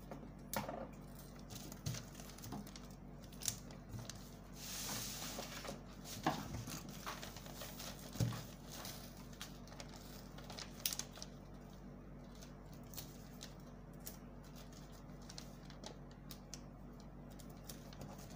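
Pattern paper being handled: sheets rustling and sliding, with scattered light taps and clicks and a longer hiss about five seconds in.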